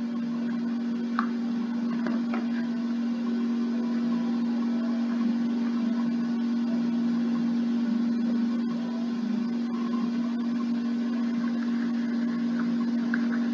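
A steady low hum with background hiss, and a few faint clicks.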